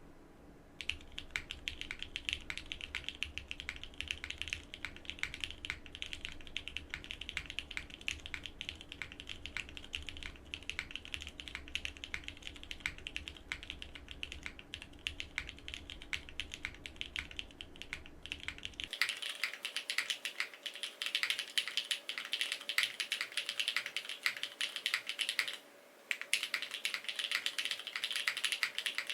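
Continuous fast typing on a Frog mini mechanical keyboard with BCP switches and GMK Katakana keycaps, a dense run of key clacks. About two-thirds of the way through, a low hum drops out and the clacks sound brighter and thinner, and the typing stops briefly near the end.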